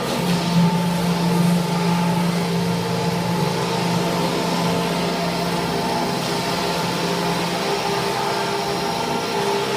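Wood shaving production line machinery running steadily, a loud mechanical drone with several steady hum tones. A deeper hum comes in just after the start and fades out about eight seconds in.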